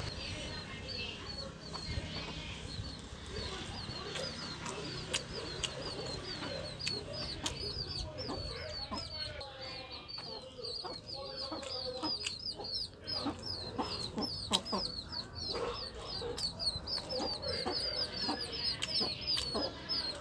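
Chickens clucking, with a quick, steady run of high short chirps and scattered sharp clicks.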